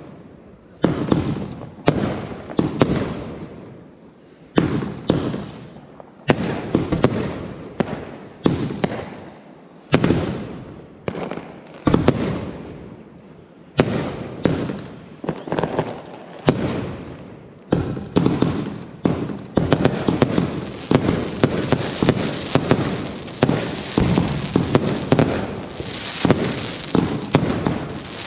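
Fireworks display: aerial shells bursting one after another, sharp bangs about one to two seconds apart, each trailing off. About two-thirds of the way in the bursts come thick and fast and run together into a continuous barrage.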